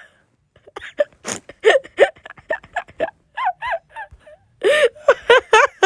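High-pitched, squeaky cartoon voices making quick gasps, whimpers and cries rather than clear words, with one short, sharp noisy burst about a second in.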